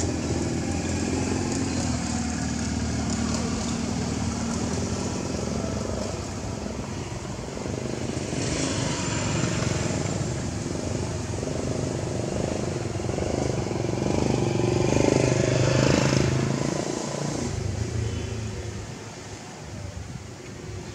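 A motor vehicle's engine running as a steady low rumble. It grows louder about three-quarters of the way through, then fades away near the end.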